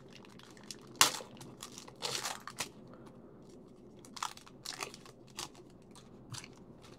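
Foil wrapper of a trading-card pack being torn open and crinkled. A sharp crackle comes about a second in, more around two seconds, then lighter crinkles as the cards are slid out.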